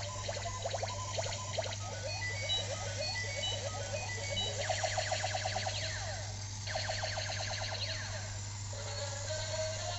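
Battery-operated toy robot's electronic sound effects from a small speaker: bursts of rapidly repeating falling zaps and short high beeps, over a steady low hum.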